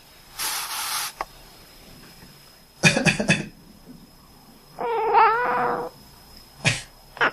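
A short breathy hiss near the start, then a person coughs in a quick cluster about three seconds in. About two seconds later a domestic cat answers with one drawn-out quacking call.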